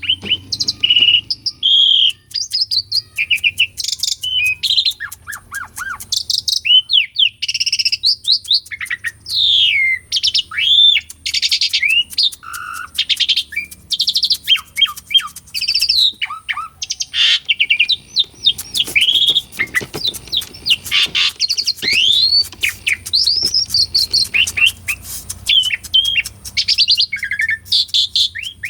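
Asian pied starling (jalak suren) singing vigorously in a long, varied song: whistled notes sweeping up and down in pitch, mixed with rapid rattling chatter, with hardly a pause.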